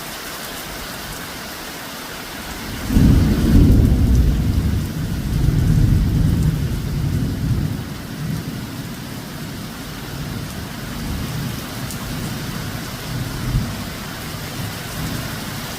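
Steady heavy rain hissing, with a clap of thunder about three seconds in that rumbles low and rolls on, slowly fading over the next several seconds.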